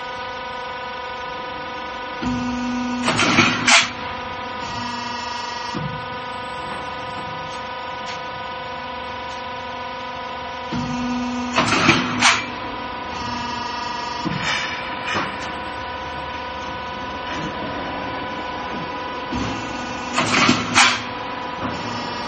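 Trapezoidal roof-sheet roll forming machine running with a steady electric hum. About every nine seconds its cutter shears off a sheet with two sharp clacks in quick succession. This happens three times, and the cuts are the loudest sounds.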